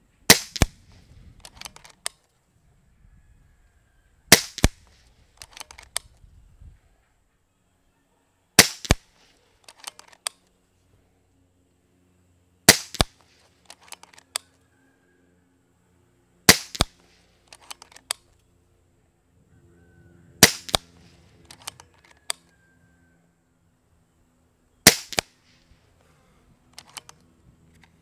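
Kral Puncher Breaker .22 PCP air rifle firing seven shots, one about every four seconds, each a sharp short report. About a second after each shot comes a cluster of lighter clicks as the action is cycled for the next pellet.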